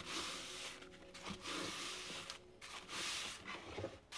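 Blue shop towel wet with acetone rubbed back and forth over a steel knife blade: a scrubbing hiss in a few long strokes with brief breaks, wiping off the black oxide residue left by electro-etching.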